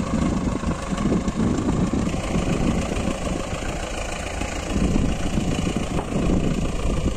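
Farm tractor's diesel engine running steadily as the tractor drives through the field powering a PTO-driven boom sprayer.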